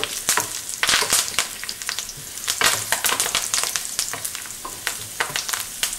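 Hot oil sizzling in a stainless-steel pan as fresh curry leaves, shallots and dried red chilli fry in a tempering, with many sharp crackles and pops from the spluttering leaves over a steady hiss. A wooden spoon stirs through the pan.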